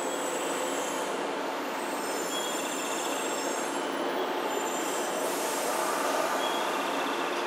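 JR 113-series electric train at the platform: a steady noise with faint high squealing tones that come and go. It grows slightly louder about six seconds in, as the train begins to pull away.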